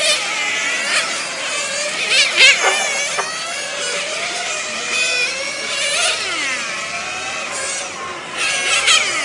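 Several nitro-powered RC touring cars' small glow engines whining around the track, many overlapping high-pitched tones rising and falling as the cars accelerate and brake. Louder passes come about two seconds in and near the end.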